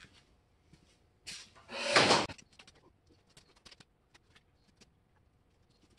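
Handling noise from an engine hanging on a hoist as it is turned by hand: a short scraping clatter about two seconds in, after a smaller one just before, then a few faint clicks and knocks.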